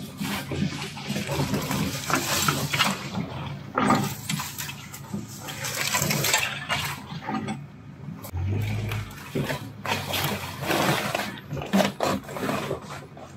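Branches and bushes scraping and brushing along the body of a Jeep Cherokee XJ as it pushes slowly through dense scrub. The sound comes in irregular rasping bursts, the wear that scratches the paint.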